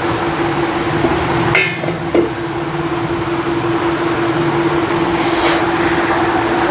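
Steady mechanical hum with noise running underneath, broken by two short, sharp clinks about a second and a half and two seconds in.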